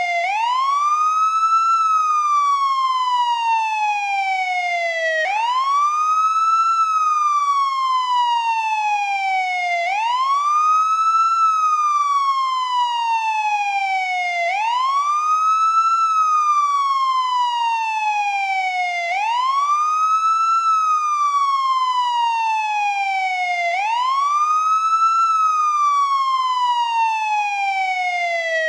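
American police car siren on its wail tone: the pitch climbs quickly, then falls slowly, in a cycle repeating about every four and a half seconds.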